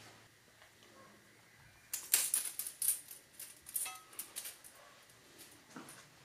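Thin steel bandsaw blade, freed from the wheels of a Delta 9-inch bandsaw, clicking and rattling against the saw's metal as it is handled: a quick run of light ticks starting about two seconds in and lasting a couple of seconds.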